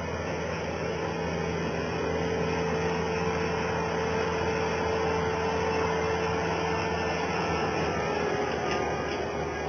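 Skid steer loader's engine running steadily, with a slight drop in pitch about eight seconds in.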